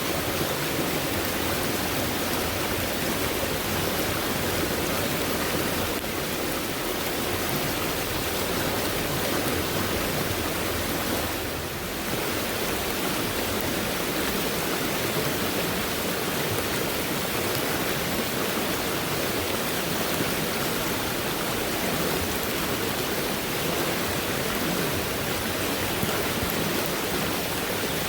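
Fast-moving stream swollen after heavy rainfall, water rushing in a steady, even wash of sound, dipping briefly a little under halfway through.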